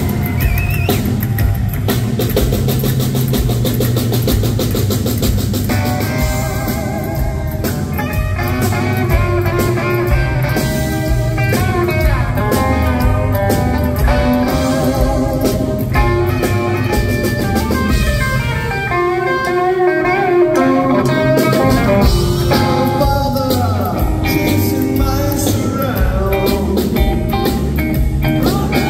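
Live rockabilly band playing an instrumental break: a Gretsch hollow-body electric guitar taking a lead over upright bass and a drum kit. The lead guitar lines come in clearly about six seconds in.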